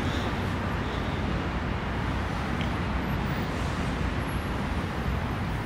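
Steady road traffic noise, an even rumble and hiss with no single vehicle standing out.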